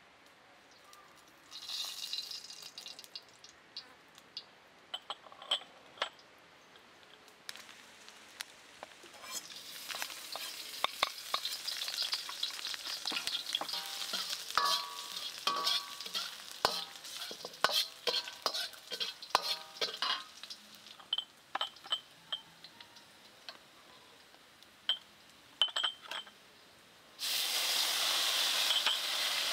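Oil sizzling in a hot carbon-steel wok as chopped aromatics are stir-fried, with a metal ladle scraping and clinking against the pan. About 27 seconds in, a sudden loud, steady hiss starts as liquid hits the hot wok and it steams.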